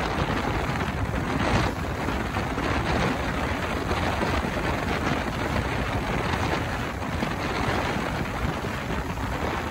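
Steady rushing noise of wind on the microphone and water aboard a boat under way, even throughout, with no distinct engine tone standing out.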